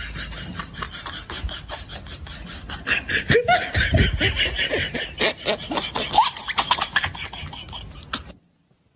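Loud laughter over a rapid, even clicking, with the laughter loudest from about three seconds in; it all cuts off abruptly near the end.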